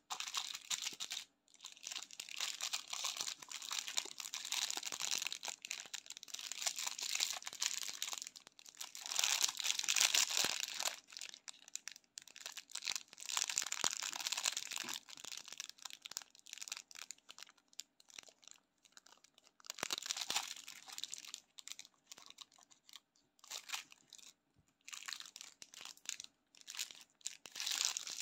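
Clear plastic wrapper of a sour tape candy crinkling as fingers handle and squeeze it, in bursts of a few seconds with short pauses between.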